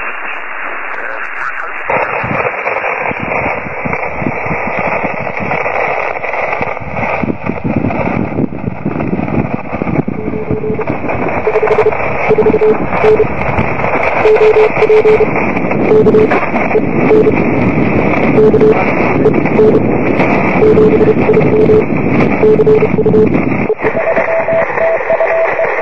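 A portable QRP ham radio transceiver receiving: loud band-noise hiss through its speaker, with a Morse code signal beeping in short and long tones from about ten seconds in, and a second, higher-pitched Morse signal near the end.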